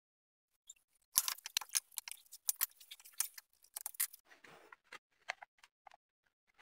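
Light clicks and taps of small particleboard strips being handled and set against each other on a table saw's metal top, then a brief scratchy stroke of a pencil marking the wood about four seconds in, followed by a few faint taps.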